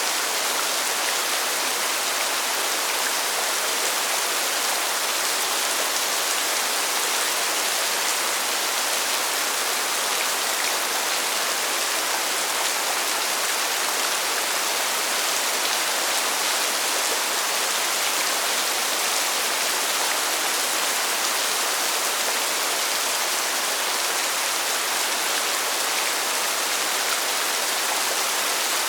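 Steady rain falling, an even hiss with its weight in the higher frequencies and no thunder or changes.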